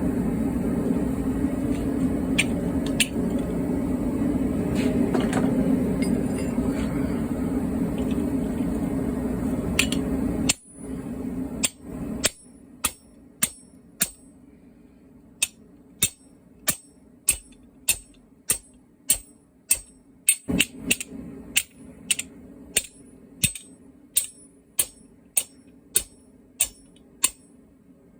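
A steady mechanical noise that cuts off about ten seconds in, followed by a hammer striking car spring steel on an anvil in a regular rhythm, about one and a half blows a second, each with a bright ring.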